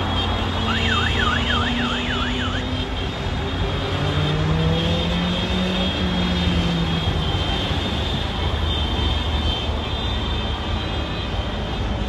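Motorcycles and cars of a convoy driving past, their engines rising in pitch as they go by over steady road noise. A rapid warbling siren-like horn sounds for about two seconds near the start.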